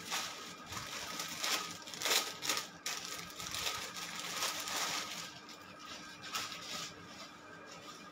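Clear plastic garment bag crinkling and cloth rustling as a folded cotton suit is pulled out of its packaging and shaken open. The rustling is irregular, loudest over the first five seconds, then softer.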